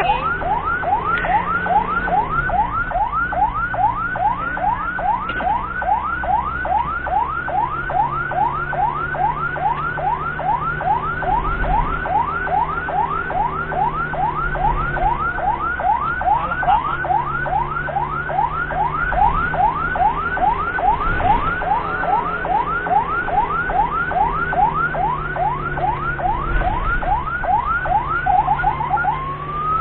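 Ambulance siren on fast yelp, rapid rising sweeps about three a second, over the steady hum of the vehicle's engine. Near the end the siren changes to slower, longer sweeps.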